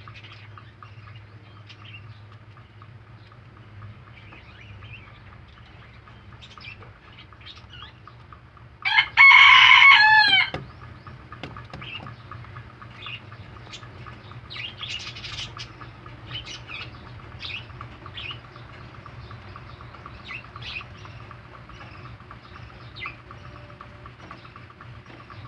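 Baby rabbits munching fresh vegetables, a faint run of rapid crunching and clicking. About nine seconds in, a loud pitched animal call lasting about a second and a half breaks over it, its pitch dropping at the end.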